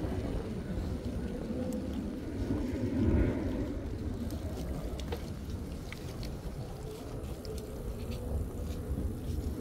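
Low rumble of wind and road noise on the microphone while riding a road bike, swelling briefly about three seconds in, with a few faint clicks.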